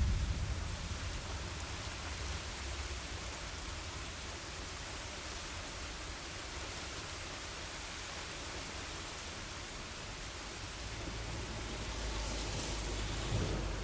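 Steady rain falling as an even hiss, with the low rumble of thunder dying away in the first second; the hiss swells slightly near the end.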